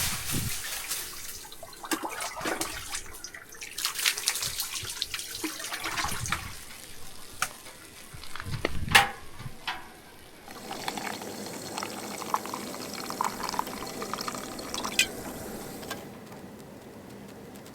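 Water poured and splashed in irregular bursts for about ten seconds in a tent sauna, then a quieter steady background with a few light clicks.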